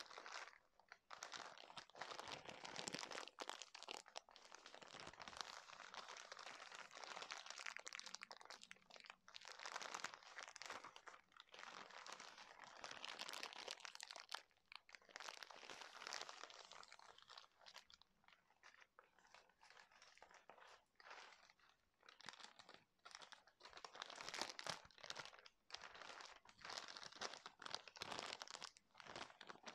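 Soft plastic packaging crinkled and squeezed in the hands: quiet runs of crackling with short pauses between handlings.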